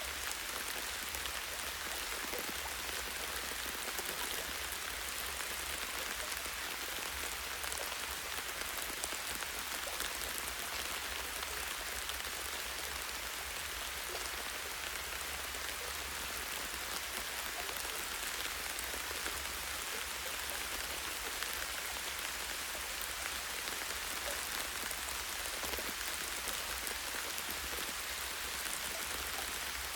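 Light rain falling on a tree branch: a steady hiss of many small drop ticks, with a steady low rumble underneath.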